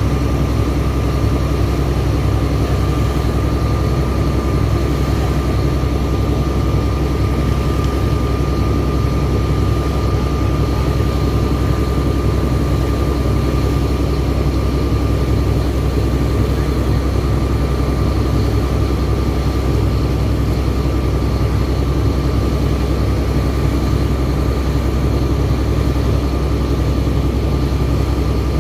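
ELGi borewell air compressor running steadily under power: a deep, continuous engine drone with a thin, steady whine above it.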